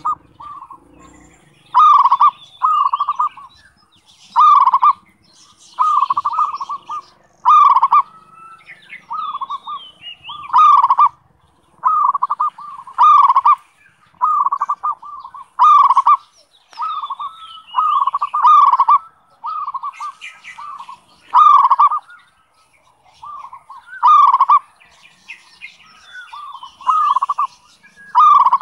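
Zebra dove (perkutut) cooing: short repeated ringing coo phrases, about one every second or so, the song kept by Indonesian bird-keepers to prompt other perkutut to call.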